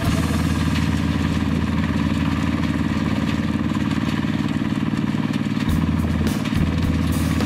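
Compact tractor's engine running steadily under load while its rotary blade implement churns through dry soil.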